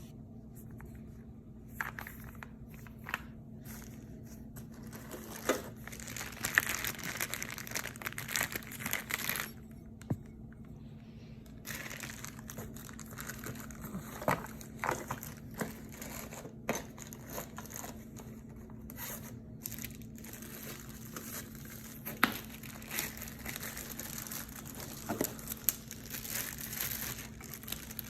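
Plastic and cardboard packaging crinkling and rustling as it is handled and pulled open, with scattered light clicks and knocks. A steady low hum runs underneath.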